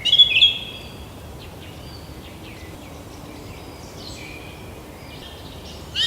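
Forest birds chirping and calling. A burst of clear, loud chirps opens the stretch, fainter calls from farther birds follow, and louder chirping picks up again near the end.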